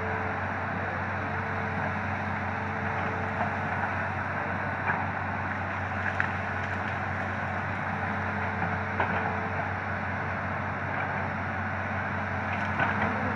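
Hitachi Zaxis 200 hydraulic excavator's diesel engine running steadily as the boom and bucket work, with a steady whine over the engine hum. A few brief knocks sound over it.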